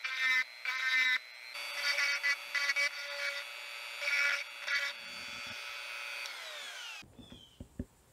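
Dremel rotary tool with a deburring bit grinding the edges of a stainless steel square-hole washer: a high whine in short bursts. About seven seconds in, the tool is switched off and winds down, followed by a few light clicks.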